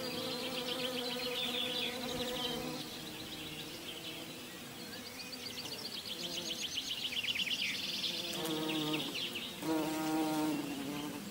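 A flying insect buzzing close by: a steady drone for the first three seconds, then two shorter passes near the end, the second sagging slightly in pitch. High rapid trills of songbirds sound in the background.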